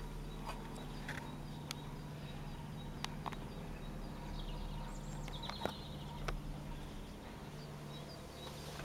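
Steady low drone of a light propeller aircraft's engine (a Cessna), unseen in thick fog, with small birds chirping and a few sharp clicks.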